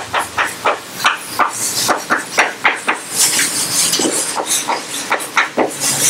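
Chalk writing on a blackboard: a quick run of sharp taps, about two or three a second, as each stroke lands, with a stretch of scratchy chalk-scraping about halfway through.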